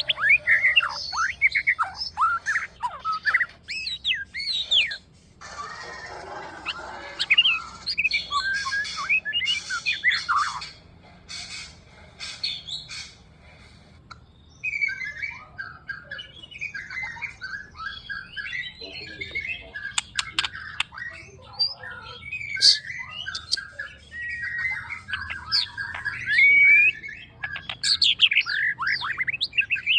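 Young white-rumped shama singing a varied song of rising and falling whistles mixed with rapid chattering and sharp clicking notes, broken by short pauses.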